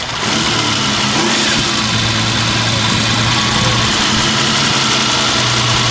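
The 1.5-litre V12 engine of a 1948 Ferrari 166 MM, freshly started and running at a steady idle.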